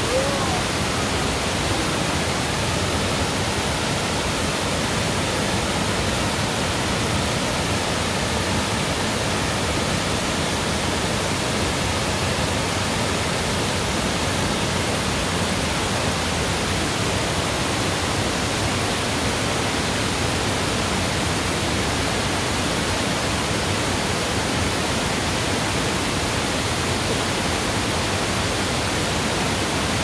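Large mountain waterfall: a steady, unbroken rush of falling water.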